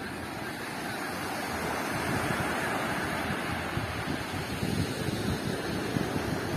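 Small surf breaking and washing up a sandy beach, with wind buffeting the microphone; the wind rumble grows louder about two seconds in.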